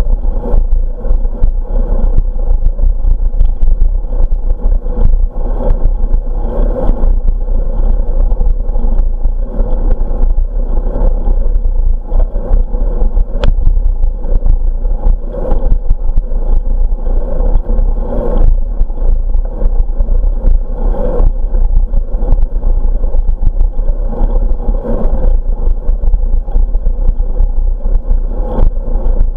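Wind buffeting the microphone of a camera carried on a moving bicycle: a steady, loud rumble, broken by frequent small clicks and rattles from the bike and camera mount.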